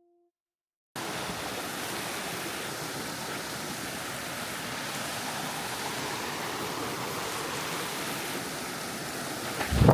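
Steady rush of waterfall and creek water, starting about a second in. A loud short thump breaks in just before the end.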